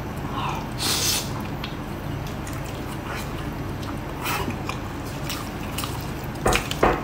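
Wet smacking and sucking sounds of biting and chewing a sticky braised pig's trotter, a few short bursts with the two strongest near the end, over a steady low hum.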